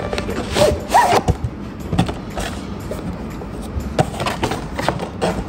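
Unboxing handling noise: a cardboard retail box being handled and opened, with rustling, a brief squeak about a second in, and several light knocks as a zippered carry case is taken out and set down on a cushion.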